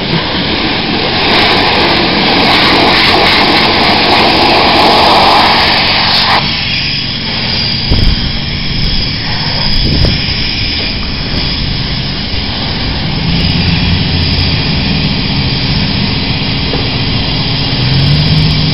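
Self-serve car wash high-pressure wand spraying water onto a scooter, a loud steady hiss that cuts off suddenly about six seconds in. After that a lower steady rumble carries on, with a couple of short knocks.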